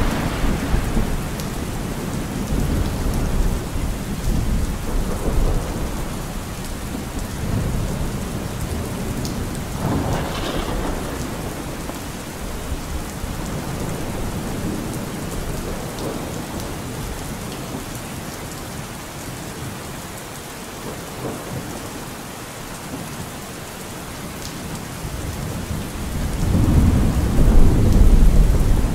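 Steady rain with rolls of thunder: a rumble near the start, another about ten seconds in, and a longer, louder one near the end.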